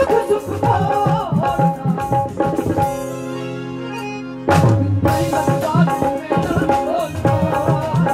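Live Sufi folk music: a woman's voice singing winding runs over harmonium and hand-drum strokes. About three seconds in, the drums stop and a steady held chord sounds alone for about a second and a half, then drums and voice come back in loudly together.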